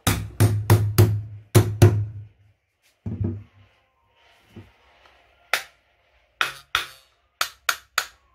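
Small hammer striking a manual hand plane to seat and adjust its blade: a quick run of about six sharp knocks with a low thud, then scattered lighter, sharper taps.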